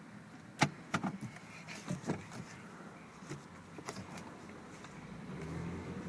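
A string of sharp clicks and knocks, about eight in four seconds, then a low steady hum that swells near the end.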